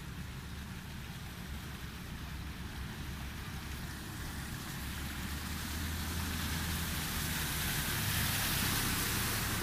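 Motorcycles riding through flood water on a street, their engines running and their wheels throwing up spray. The engine hum and the hiss of splashing water grow louder over the second half as the bikes come close.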